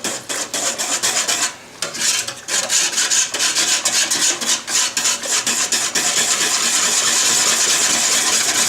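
Wire whisk scraping and rattling against the bottom and sides of a soup pot in quick rhythmic strokes, stirring cold half and half into hot soup; it pauses briefly under two seconds in and turns into a faster, steadier scraping later on.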